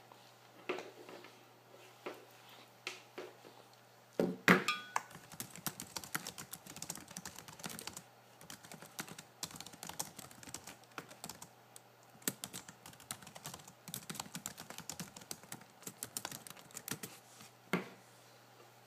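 A long run of quick, irregular clicks and taps, with a louder knock about four and a half seconds in.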